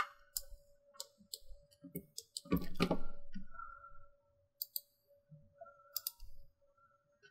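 Computer mouse clicking: scattered single clicks and some quick pairs, over a faint steady hum, with a louder muffled thump about two and a half seconds in.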